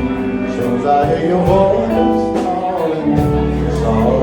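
Band music with guitar over held bass notes.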